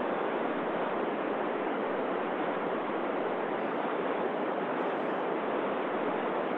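Steady white-noise hiss from an amateur radio receiver with its mute (squelch) opened on the space station's downlink, before acquisition of signal: no station is being received yet.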